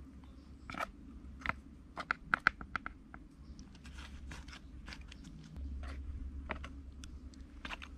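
Light scattered clicks and taps of wooden chopsticks handling marinated suckermouth catfish pieces and their hard armored heads on a leaf-lined steel tray, with a quick run of clicks a couple of seconds in. A low steady rumble lies underneath and grows louder a little past halfway.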